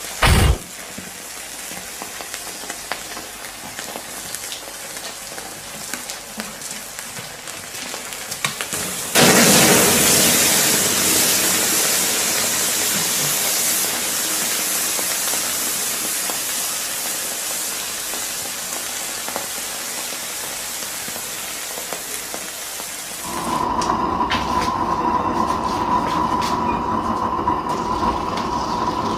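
Laptop burning under poured molten metal, crackling and sizzling. About nine seconds in, a sudden loud hissing rush starts as the laptop pours out thick white smoke, typical of its lithium battery venting, and it slowly dies down. Near the end it gives way to a steady low rumble with a steady high tone.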